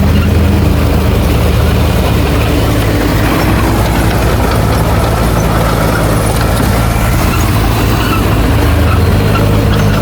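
Heavy diesel engine of earthmoving equipment running steadily at a low, constant pitch.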